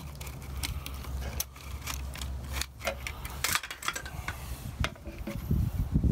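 Ratcheting piston ring compressor being tightened with a hex key, its ratchet clicking in short irregular runs as the band squeezes the piston rings. A few heavier knocks come near the end.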